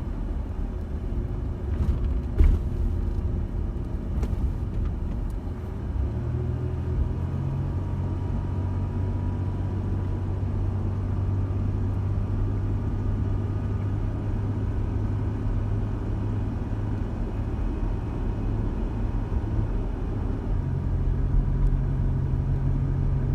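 Van driving: a steady engine hum and road rumble heard inside the cabin, with a single thump about two and a half seconds in.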